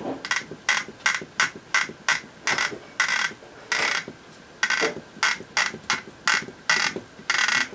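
Harbo insemination syringe being wound by hand to push saline out through the capillary tube, making a steady run of mechanical clicks about three a second.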